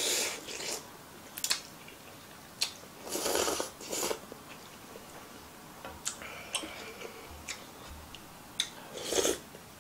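A person slurping ramen noodles loudly in three bursts: at the start, about three seconds in, and near the end. Between the slurps there is chewing and small sharp clicks.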